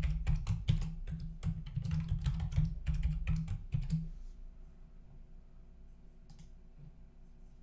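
Typing on a computer keyboard: a quick run of keystrokes for about four seconds, then it stops. A single faint click follows a couple of seconds later.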